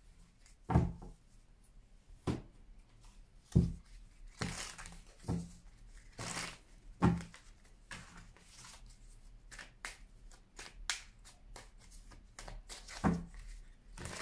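A deck of paper reading cards being shuffled and handled by hand: soft swishes of cards sliding against each other, broken by several sharp knocks as the deck meets the table.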